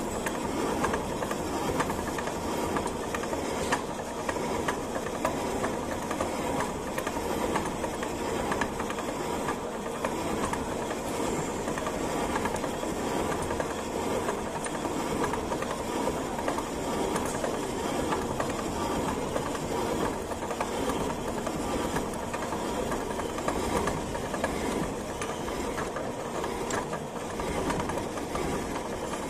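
Horizontal milling machine running, its convex form milling cutter cutting a concave groove dry into a cast iron block: a steady, even machining noise with a fast, fine rattle of the cutter teeth over a constant hum.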